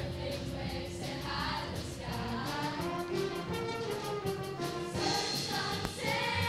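Middle school show choir singing in unison and harmony over an accompaniment with a steady beat.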